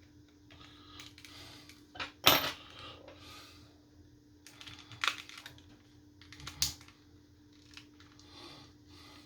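Sharp plastic clicks and taps from handling a Nintendo Switch Joy-Con controller. The loudest comes about two seconds in, followed by a few more spread through the rest.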